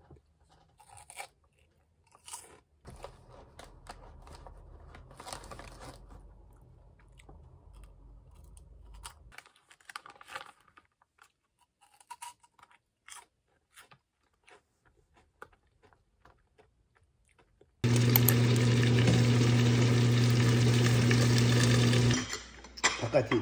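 Close crunching and chewing of a crunchy snack, with the plastic snack bag crinkling now and then. Near the end a loud steady whir with a low hum starts suddenly and cuts off about four seconds later.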